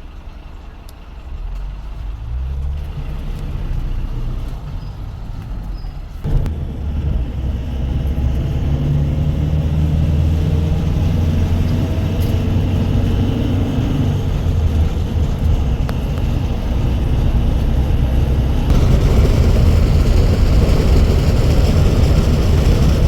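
A motor vehicle's engine and road noise, picking up speed: the engine note rises in the first few seconds, there is a single thump about six seconds in, and the road and wind noise grows louder near the end.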